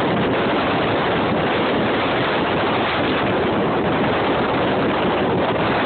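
Strong wind buffeting the phone's microphone, a steady rushing noise, over choppy waves on open water.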